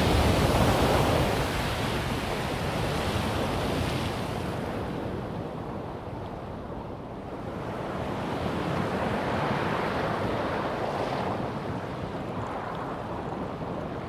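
Strokkur geyser erupting: a loud rush of water and steam that eases off over a few seconds, swells again about eight seconds in, then fades.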